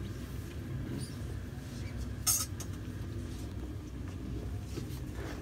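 Low, steady background rumble of a small, crowded room. A short, sharp hiss-like noise comes a little over two seconds in.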